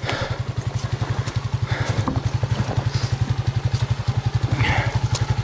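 250 cc ATV engine running at a low, steady speed, with an even, rapid exhaust beat that does not rise or fall.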